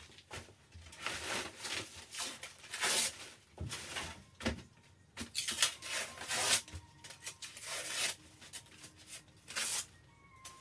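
Old wallpaper being stripped off a wall: irregular ripping and scraping strokes as the paper is torn and scraped away.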